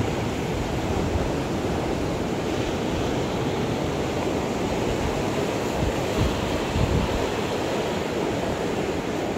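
Small sea waves washing over shallow rocks at the shoreline, a steady rush of surf, with wind buffeting the microphone.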